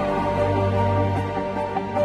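Background music: slow, held notes over a low, steady drone.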